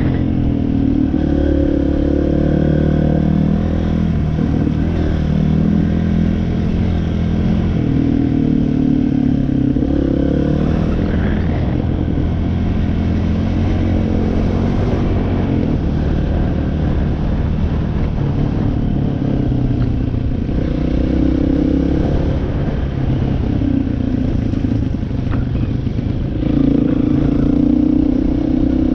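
Off-road machine's engine running while riding a trail, its pitch rising and falling with the throttle and getting louder near the end.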